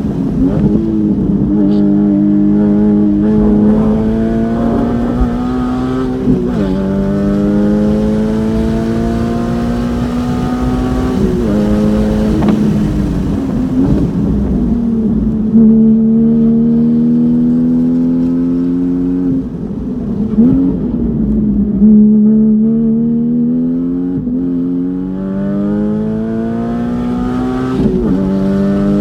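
Porsche Cayman GT4's flat-six engine with an open exhaust, heard from inside the car while lapping a race track. The engine note climbs steadily under acceleration and falls back sharply at each gear change or braking point, five or six times.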